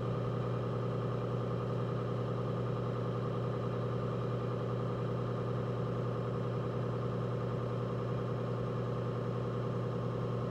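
Electric potter's wheel running at a steady speed: a constant motor hum with several steady higher tones above it.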